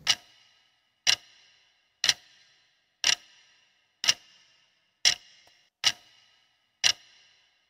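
Clock-tick countdown sound effect: a sharp tick about once a second, each with a brief ringing tail, eight in all.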